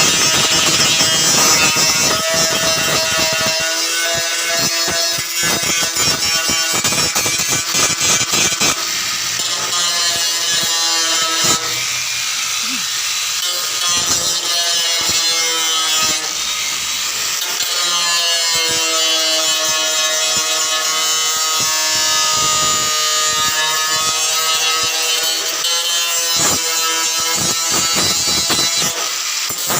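Gasless flux-core MIG welder's arc crackling and spitting steadily as it lays weld on thin sheet-metal car body panel.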